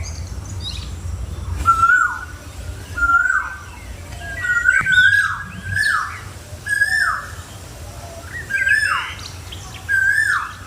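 A bird calling over and over, each call a clear whistled note that holds briefly and then drops sharply, about once a second, with fainter high chirps from other birds. A low rumble underlies the first two seconds.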